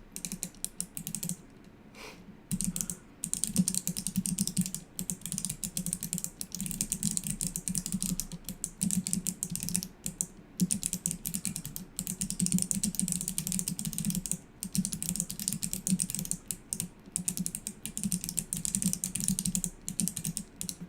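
Fast typing on a mechanical keyboard with the keycaps removed, fingers striking the bare clicky Kailh Box Navy switch stems: a dense run of sharp clicks with a few brief pauses.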